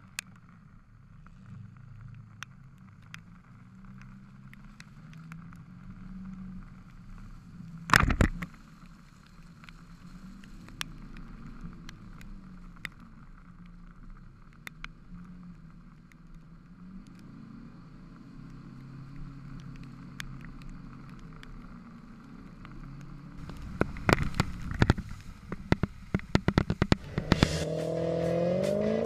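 Off-road 4x4 engine running and revving gently at low speed through mud, its pitch rising and falling, with scattered sharp clicks on the camera. A loud knock comes about eight seconds in and a rapid run of knocks and clicks follows near the end, just before music starts.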